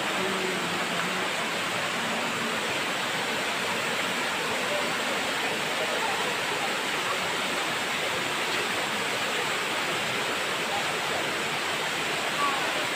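Steady rushing of a waterfall spilling over stepped rock into a pool.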